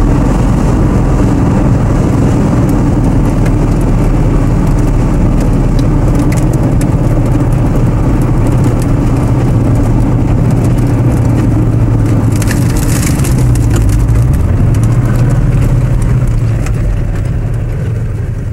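De Tomaso Pantera's V8 engine running at speed on the track, heard from inside the car with rough road and wind noise. The engine note dips briefly about fifteen seconds in, then recovers before the sound fades out near the end.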